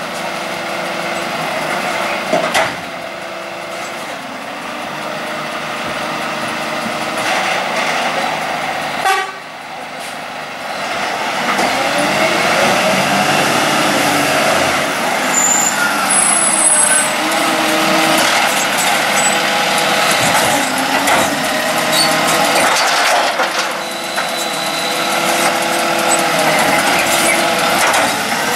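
Volvo side-loader garbage truck's diesel engine running while its lifting arm empties a kerbside bin, with sharp knocks about two and a half and nine seconds in. From about twelve seconds in the truck drives off toward the microphone, engine pitch rising and falling and the sound growing louder as it comes close.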